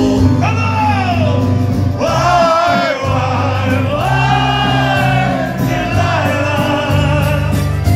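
A man singing into a microphone with a live band, amplified through a PA: he holds long, wavering notes over electric guitar, drums and a steady bass line.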